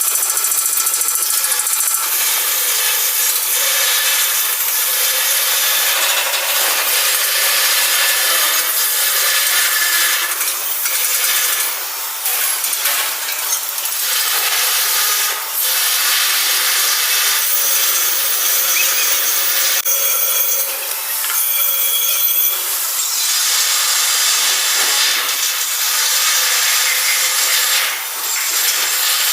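Angle grinder grinding steel: a steady, loud, harsh abrasive noise with a faint whine, easing off briefly a few times.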